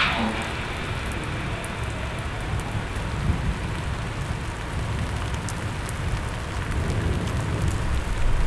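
Rain-like ambient sound effect: a steady hiss with scattered crackles over a low rumble, after a short falling swoosh right at the start.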